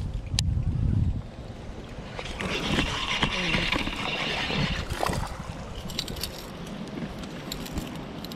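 Handling noise from a rod and baitcasting reel as a bass is reeled in on a buzzbait. Wind rumbles on the microphone in the first second, and a stretch of hiss follows in the middle.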